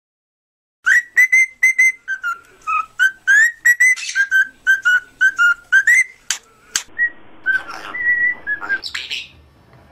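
A parrot whistling a fast run of short, clear notes that jump between a few pitches. The notes thin out after about six seconds, and a short noisy sound comes near the end.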